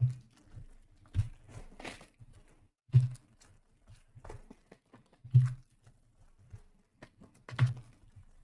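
Trading-card packs being handled and torn open: crinkling, tearing foil wrappers, with about five dull knocks on the table spaced one to two seconds apart.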